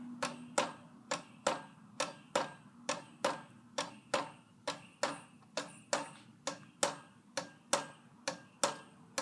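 Monte Carlo Designer Supreme II ceiling fan running on medium speed with a sharp, regular clicking, about two clicks a second, over a faint hum. The noise comes with a wobble; the owner can't tell what the fault is.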